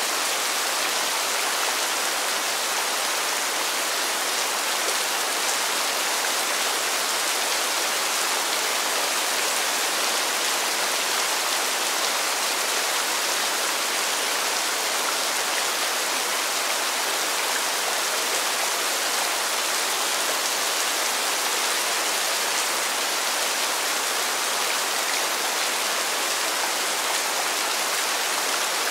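Steady rain falling, a constant even hiss with no thunder or other events.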